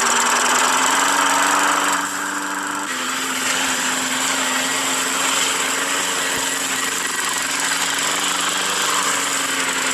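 Gasoline push lawn mower engine running steadily with an even drone; its note steps slightly higher about three seconds in.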